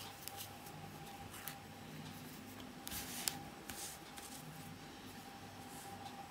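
Faint handling sounds of a steel crochet hook working fine cotton thread, then a brief rustle about three seconds in as the lace doily is shifted and smoothed flat on the table, with light clicks scattered throughout. A faint steady hum lies underneath.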